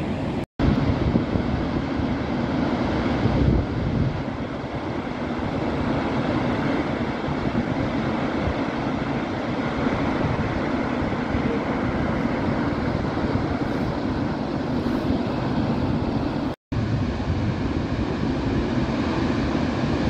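Dettifoss, a wide, powerful glacial waterfall, giving a loud, steady, deep rush of falling water. The sound drops out twice for an instant, once just after the start and once about three-quarters through.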